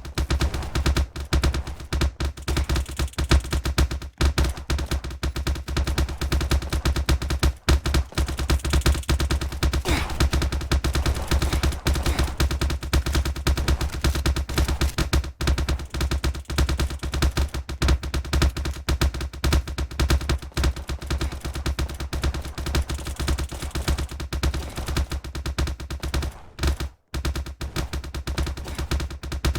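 Rapid, irregular clapping-like cracks, many per second, over a steady low rumble, with a brief pause about 27 seconds in.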